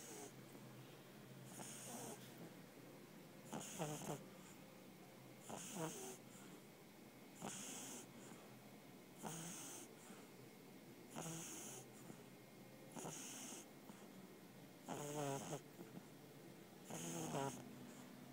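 Pug snoring in its sleep: a faint snore on each breath, about one every two seconds, some with a fluttering rattle.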